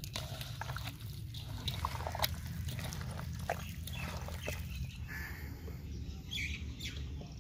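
Hands squelching and kneading chicken pieces through thick, wet gram-flour batter in a steel bowl, with irregular sticky slaps and squishes. After about five seconds the mixing stops and a bird calls twice over a steady low rumble.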